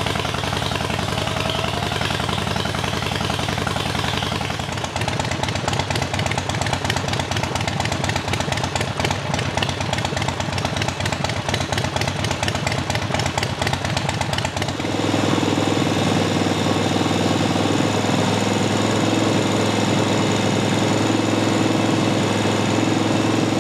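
2015 Harley-Davidson Sportster 72's air-cooled 1200 cc V-twin running at warm idle. About two-thirds of the way in it steps up to a steady, louder fast idle of about 2500 rpm.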